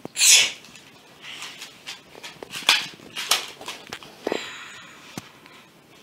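A girl sneezes loudly into her hand near the start, followed by several shorter sharp sneezes or sniffs and the crinkle of a plastic tissue packet as a tissue is pulled out.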